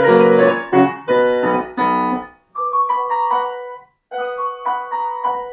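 Solo instrumental music: the closing bars of a recital piece, with full chords, then two short, higher phrases set apart by brief pauses, ending on a held note that fades out.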